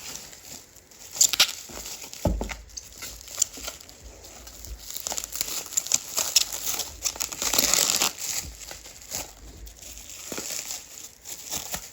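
Packing material crinkling and tearing as vinyl records are unwrapped from a mail-order box, with scattered clicks and a few louder knocks.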